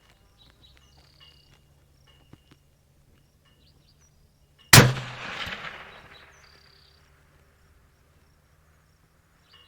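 A single shot from a suppressed 6.5 PRC bolt-action rifle (Howa 1500 with a ThunderBeast Ultra 7 suppressor), about halfway in. Its report rolls away over a couple of seconds.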